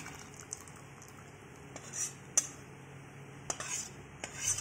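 Metal spatula scraping paneer curry out of a cooking pan into a stainless steel bowl as the curry slides in. A few sharp clinks of metal on metal come through, the loudest about halfway in.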